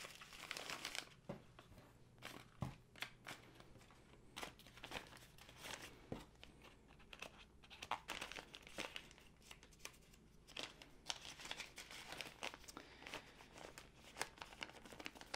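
Faint crinkling and rustling of a thin plastic zip pouch being handled and folded while small diamond painting tools are slipped back into it, with scattered sharp little crackles and clicks.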